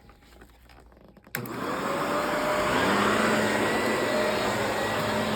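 Vacuum cleaner switched on about a second in, its motor spinning up and then running steadily with a whine over the rush of air.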